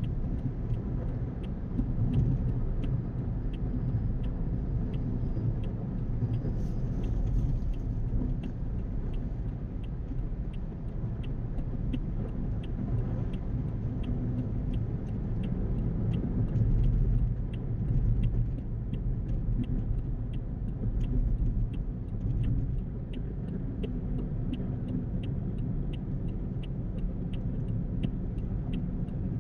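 Car driving at highway speed, heard from inside the cabin: a steady low rumble of tyres and engine that swells slightly now and then. A faint regular tick sounds about twice a second throughout.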